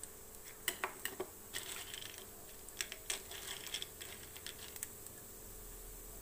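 Mustard seeds and urad dal frying in hot oil in a kadai: irregular sharp pops and crackles, in clusters about a second in and again around three to four seconds in.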